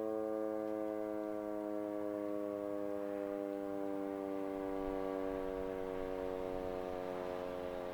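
Sentry 14V electromechanical outdoor warning siren winding down after its test. Its chord of tones slides slowly and steadily lower as the rotor coasts.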